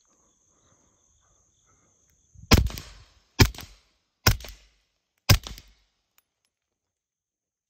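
Four suppressed 9mm pistol shots from a Glock 17 fitted with a SilencerCo Omega 9K suppressor, fired about a second apart starting about two and a half seconds in, each a sharp crack with a short tail.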